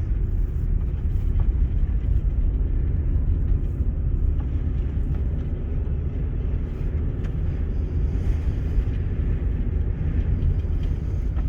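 Steady low rumble of a car driving on a snow-covered road, heard from inside the cabin: engine and tyre noise with no change in revs.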